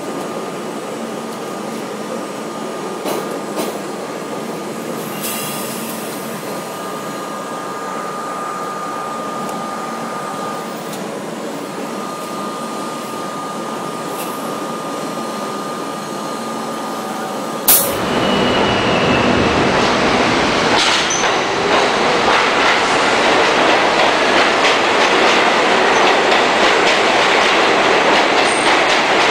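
Subway train running through a tunnel, heard from inside a moving car as a steady rumble with a high hum. About two-thirds of the way through it cuts to a louder sound: a stainless-steel subway train rushing past a station platform, with the rumble and clatter of its wheels on the rails.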